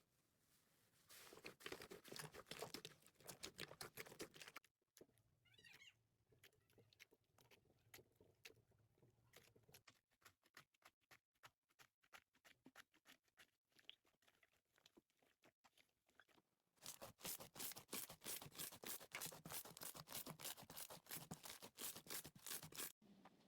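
Slime being squished and worked: faint, fast crackling and popping clicks that come in two dense spells, the second near the end, with sparser clicks between.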